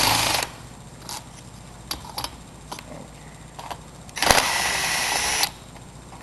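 Light metal clicks and knocks of hand tools on a small motorcycle engine being dismantled, with a short burst at the start and, past the middle, a power tool whirring steadily for about a second.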